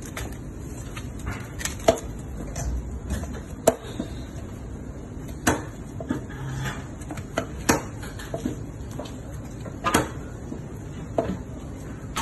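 Butcher's knife cutting raw chicken legs and knocking against the cutting board: irregular sharp knocks every second or two over a steady background noise.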